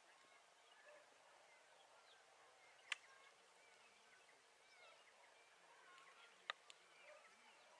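Near silence with faint, distant birds chirping, broken by two sharp clicks about three seconds in and about six and a half seconds in.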